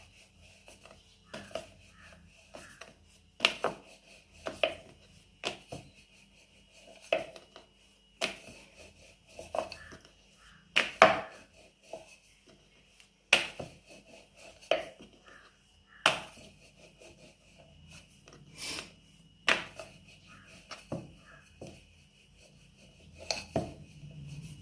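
Rolling pin knocking and clacking against the rolling board as bhatura dough is rolled out: sharp, irregular knocks about once a second.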